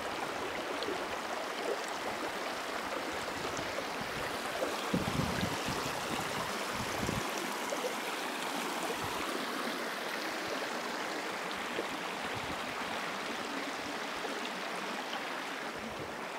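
Shalmala river water flowing steadily, an even rushing hiss, with a brief low rumble about five seconds in.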